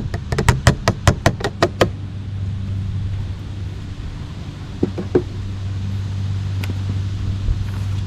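Steady low engine hum, with a fast run of sharp clicks, several a second, for about the first two seconds and a few separate knocks later.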